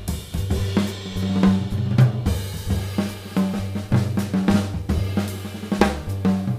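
Jazz band playing live with the drum kit to the fore: rapid snare, cymbal and bass-drum hits over an acoustic bass line that moves from note to note.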